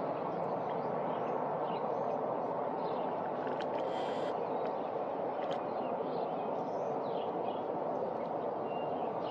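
Steady outdoor rushing noise with a few faint bird chirps over it.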